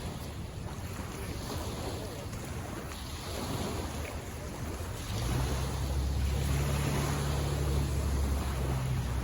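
Waves washing on the shore with wind blowing over the microphone; a steady low rumble comes in about five seconds in and grows louder.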